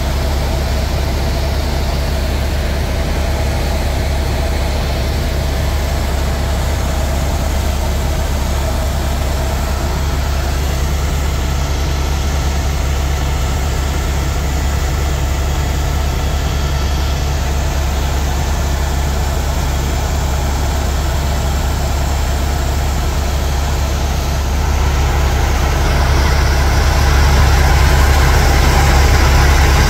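Tour helicopter in flight, heard from the cabin: a loud, steady low drone of engine and rotor that grows a little louder about 25 seconds in.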